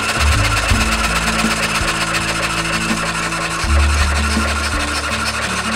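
Background music with held low notes that change every second or so, over a steady rasping noise.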